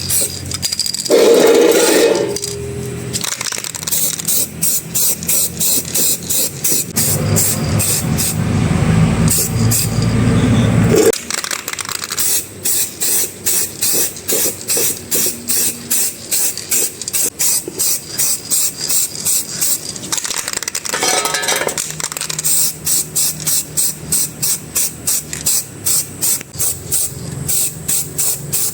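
Rapid, even scraping strokes, about two or three a second, typical of a part being scrubbed or brushed by hand. A louder rushing noise runs for about four seconds, starting about a quarter of the way in.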